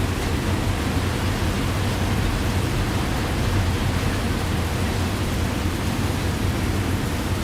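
Heavy rain pouring steadily: an even, unbroken rushing hiss, heaviest in the low end.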